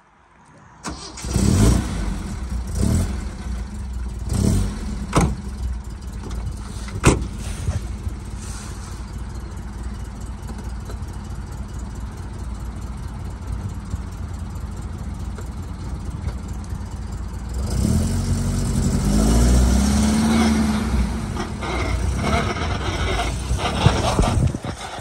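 Alfa Romeo GTV's four-cylinder engine starting about a second in, blipped several times, then idling steadily. After about seventeen seconds it gets louder, with a whine that rises and falls, as the car reverses; this is the terrible transmission noise the car makes in reverse.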